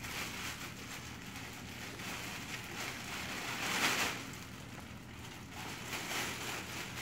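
Sterile plastic bag rustling and crinkling as it is handled and drawn over the injector's control screen, loudest about four seconds in.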